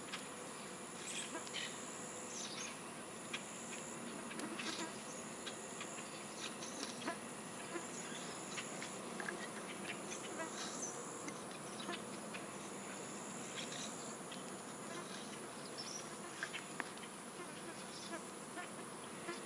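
Insect chorus: a steady high-pitched drone, with another insect's call starting and stopping every second or two, and a few faint clicks.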